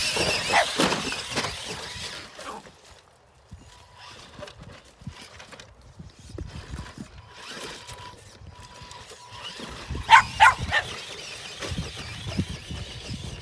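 A dog barking and yelping in short, high calls, with a loud burst at the start and a few sharp yelps about ten seconds in.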